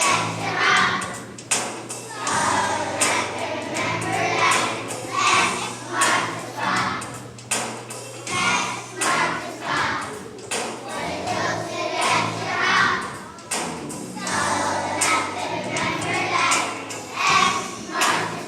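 A choir of young children singing a song in unison over instrumental accompaniment with steady low bass notes and short taps through it.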